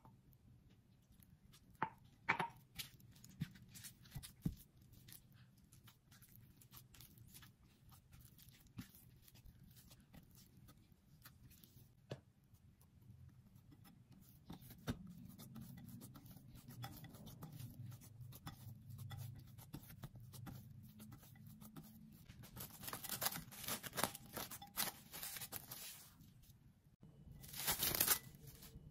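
A silicone spatula scraping and clicking against a ceramic bowl while flour dough is mixed, then hands pressing and gathering the soft dough. Near the end plastic cling film rustles as it is pulled off the roll and is torn off, the loudest sound.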